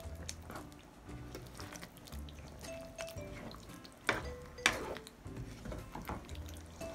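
Background music with a stepping melody and a steady low beat over a ladle stirring thick pork blood stew in a wok. A little past halfway, two sharp clinks of the ladle against the pan, half a second apart, are the loudest sounds.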